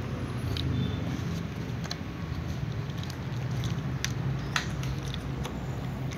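Several kittens eating from small plastic bowls: soft chewing and scattered small clicks of teeth and food against the plastic, over a steady low hum.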